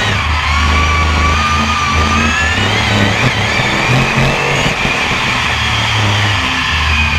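BriSCA F1 stock car's V8 engine heard from on board, revving up and down as the car races through a bend; its pitch climbs over the first few seconds, drops about five seconds in, then climbs again. Background music with a steady bass line plays underneath.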